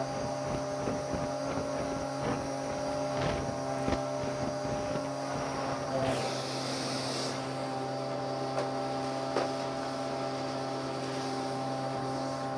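Bissell PowerLifter vacuum cleaner running steadily with a motor hum. There is a brief rush of air about six seconds in, and a few knocks and clicks as the hose and wand are handled.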